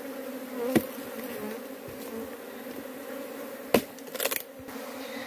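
Honeybees buzzing in a steady hum around their broken-open nest, the colony disturbed by the opening of its hollow log. Two sharp knocks sound, about a second in and near four seconds, followed by brief crackling.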